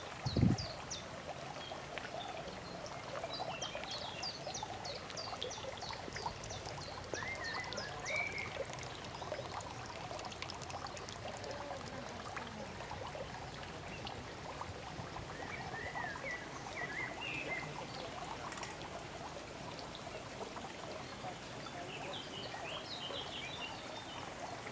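Small garden waterfall running steadily into a pond, with birds chirping in several short bursts above it. A brief low thump about half a second in.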